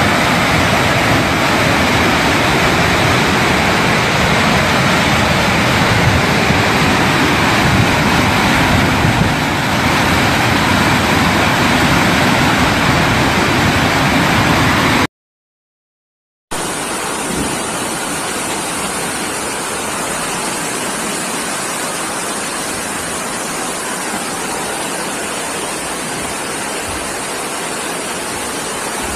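Floodwater torrent in a flash flood, making a loud, steady rush of water. About halfway through it cuts to silence for about a second and a half, then resumes thinner, with less bass.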